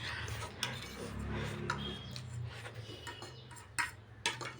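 Eating sounds from a noodle meal: soft scattered clicks and taps, with a soft low thud about a second in.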